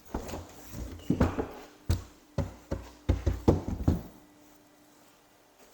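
A rapid, irregular run of about a dozen knocks and thumps over about four seconds, one of them a sharp click near the middle. A faint steady hum continues underneath.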